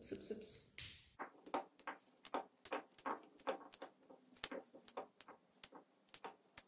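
Radish tops being pulled and snapped off by hand: a quick string of faint, sharp snaps and crackles, several a second, starting about a second in and stopping just before the end.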